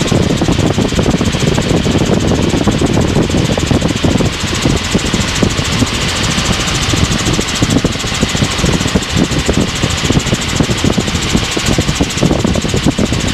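Helicopter in level flight: loud, steady engine and rotor noise inside the cabin.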